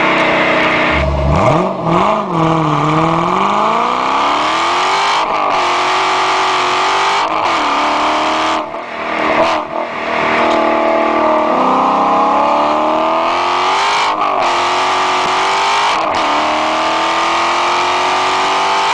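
A 2009 Dodge Challenger SRT8's 6.1-litre Hemi V8 through a Corsa exhaust, pulling hard. Its note climbs in pitch for a few seconds at a time, with a short break and drop in pitch at each gear change, about five times.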